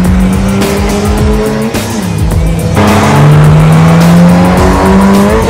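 2013 Scion FR-S's flat-four engine, on its factory exhaust, running hard under acceleration. Its pitch holds, dips about two seconds in, climbs steadily again and falls away at the end. Music plays underneath.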